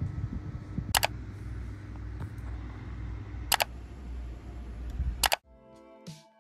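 Three sharp clicks, about a second, three and a half seconds and five seconds in, over a steady low hum. Soft background music starts near the end.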